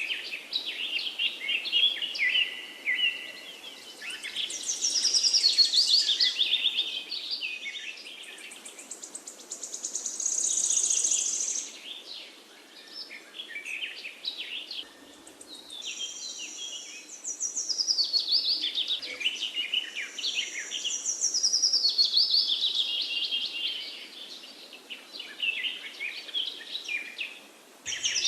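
Forest birds singing, several at once: overlapping chirps, fast trills and falling song phrases that swell and fade every few seconds.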